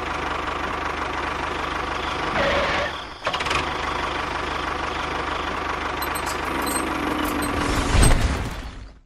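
Small motor running steadily with a fast even chatter, dipping briefly about three seconds in and swelling louder near the end before fading out.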